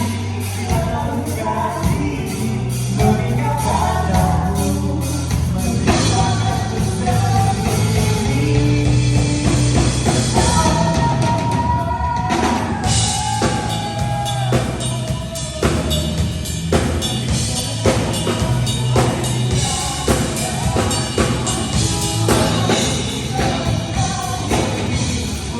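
Live band playing rock music with a drum kit keeping a steady beat and a voice singing over it.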